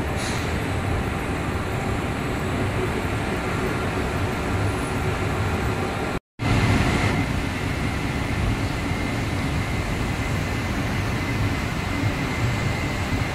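Glass tempering production line running: a steady, even machine noise. It cuts out completely for an instant about six seconds in, and a faint steady high tone sits over it afterwards.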